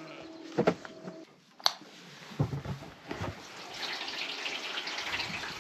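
A few knocks and clicks as a float valve is worked off a livestock water tub, then water starts running steadily from about three seconds in.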